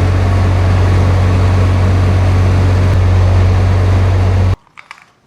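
Loud, steady engine-driven machine running with a deep hum, cut off suddenly about four and a half seconds in, then a few faint clicks.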